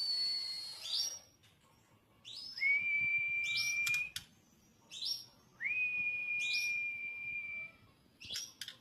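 White-rumped shama singing: a few short, high notes, each followed by a long, steady whistle held on one pitch, three times. Two sharp clicks near the middle and near the end.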